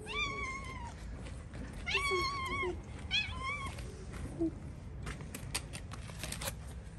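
Ginger-and-white tabby kitten meowing for food four times: two longer meows, then two short ones just after three seconds. About five seconds in come a run of light plastic clicks and crackles as the plastic food tray is set down in front of it.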